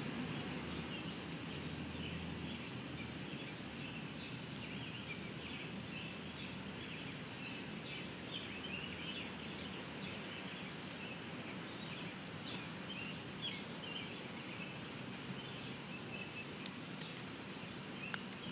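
Outdoor ambience: a steady background hiss with many faint, short bird chirps throughout, and a couple of small clicks near the end.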